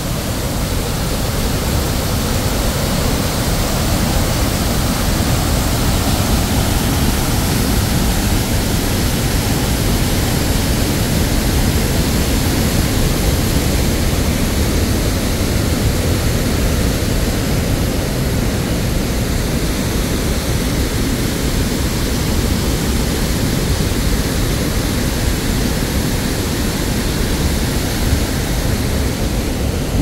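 Large waterfall: heavy river water pouring over rock ledges, a loud, steady rush of water.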